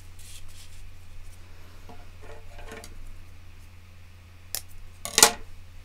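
Scissors cutting a pipe cleaner: a light click, then a louder sharp snip about half a second later near the end. Before that comes soft handling of cardboard strips on a table.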